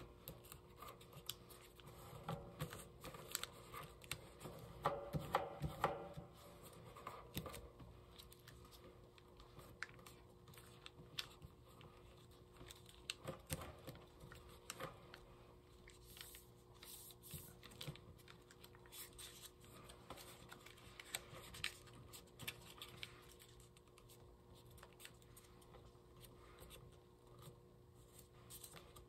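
Faint crinkling, rustling and light clicks of a sheet of origami paper being folded and pressed into creases by hand, in irregular bursts that are busiest a few seconds in.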